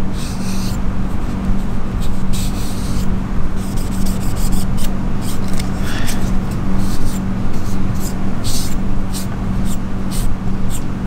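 Cotton pad with metal polish wiped down a steel knife blade, a run of short, irregular scratchy swishes. A steady low hum runs underneath.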